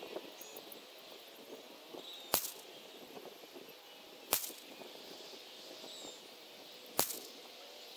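Three sharp cracks of a CZ 455 bolt-action rifle in .17 HMR, fired 150 metres from the target and heard from the target end, about two to two and a half seconds apart.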